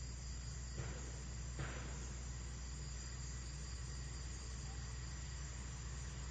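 Steady high-pitched chorus of insects buzzing, with two faint brief clicks about a second in.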